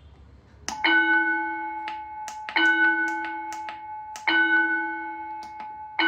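Electronic school bell tone from an automatic school bell timer, played through a horn loudspeaker: a ringing, bell-like strike repeated three times about every 1.7 seconds, each fading slowly, with a fourth strike beginning at the very end. It is the period bell for period three. Small clicks from the timer's keypad buttons fall between the strikes.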